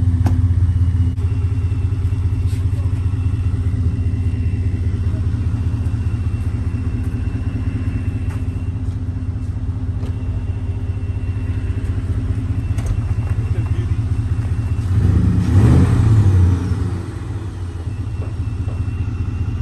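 Vehicle engine running steadily with a low drone. About fifteen seconds in it swells briefly, with a rise and fall in pitch.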